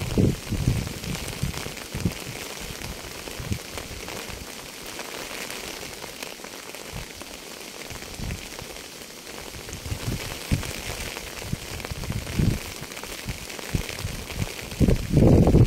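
Steady rain falling on a hard surface, a continuous hiss with scattered low thuds of heavier drops, swelling into a louder low rumble about a second before the end.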